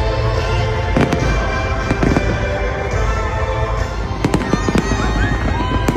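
Fireworks going off in a dense barrage: sharp bangs and crackles over a continuous low rumble. Near the end come a few short rising whistles and one long held whistle-like tone.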